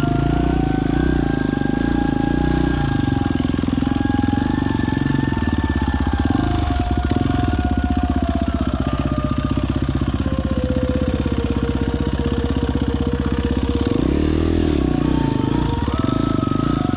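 A small engine running steadily, its pitch drifting slowly up and down.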